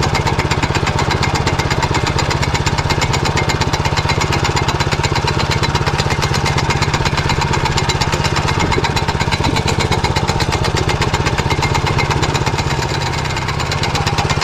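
Motor Sich walk-behind tractor engine running steadily under load at about 1900 rpm while pulling a potato digger, with a slight dip in level near the end.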